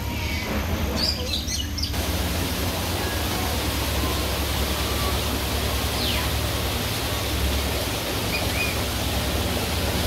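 A few short bird chirps, then from about two seconds in a steady, loud rushing noise with a low rumble under it. A falling whistle and a couple of short chirps come through the rushing near the middle and later.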